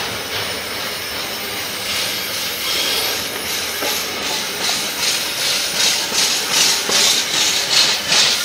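A freight train's container wagons rolling past close by: a steady rushing hiss of steel wheels on rail with a rhythmic clatter, about two or three knocks a second, that grows louder in the second half.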